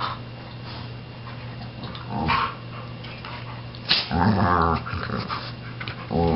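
Two dogs play-wrestling, growling in short bouts. There is a brief growl about two seconds in and a longer, louder one about four seconds in, just after a sharp click, and another starts right at the end.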